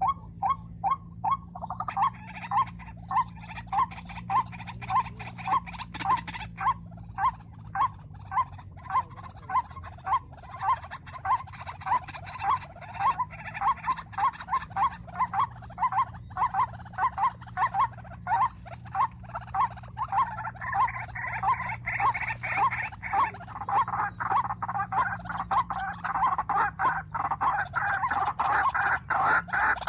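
White-breasted waterhen calling: a steady run of short repeated notes, about two a second, growing louder and denser over the last third.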